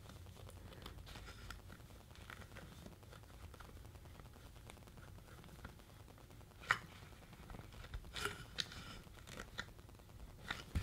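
Faint scratching and clicking of thin twisted picture-hanging wire being coiled tight by gloved hands, with a few sharper clicks in the second half.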